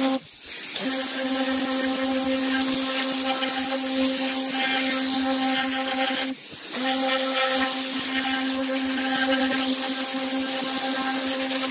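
Tornador pneumatic cleaning gun running steadily, a buzzing hiss of compressed air with one held tone. It drops out briefly about half a second in and again about six and a half seconds in.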